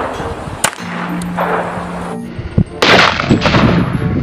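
A handgun, a gold Desert Eagle-style pistol, fired several times in quick succession from about three seconds in, each shot loud with a ringing tail. Before the shots come a few sharp metallic clicks.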